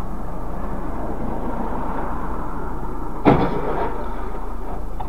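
Steady vehicle and road noise picked up by a dashcam, with one sharp thump about three seconds in that is the loudest sound and dies away within half a second.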